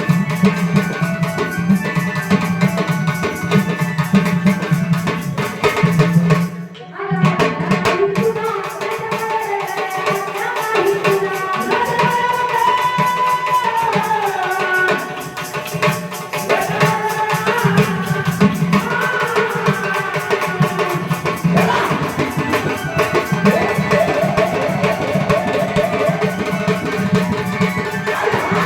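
Devotional Marathi katha singing by a woman, over a steady tabla-style drum beat with rattling percussion. The music briefly drops out about seven seconds in, then the sung melody returns.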